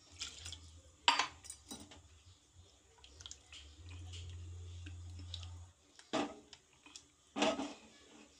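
Aluminium cooking pot and its lid clanking as they are handled: scattered metallic knocks and scrapes, the loudest about a second in and twice near the end.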